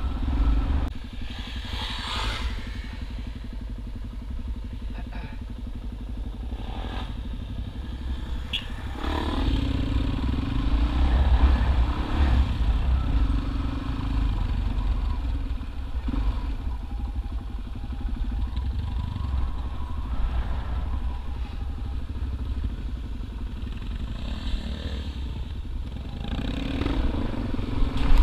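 Motorcycle engine running while riding, with a heavy low rumble, louder for a few seconds about a third of the way in.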